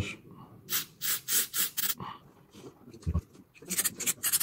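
Short hissing bursts of aerosol cleaner sprayed through a straw nozzle into the passages of a chainsaw carburetor, several quick squirts in a row and another cluster near the end.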